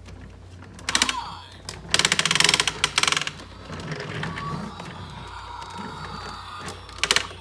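Playskool Home Crew Dusty toy vacuum making a rapid buzzing, clicking rattle in bursts: a short burst about a second in, a longer one for about a second soon after, and another near the end.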